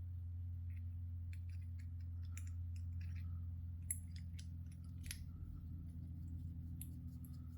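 Small, irregular clicks and ticks of a hex driver and tiny screw being worked into a Traxxas TRX-4M transmission as a screw is started, over a steady low hum.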